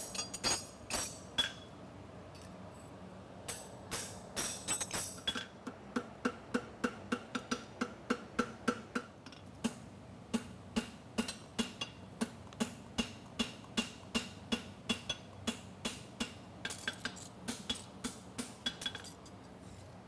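Hand hammer striking a hot steel horseshoe on a Scott anvil, the anvil ringing after each blow. A few blows, a pause of about two seconds, then a steady run of about two to three blows a second, quicker and lighter near the end.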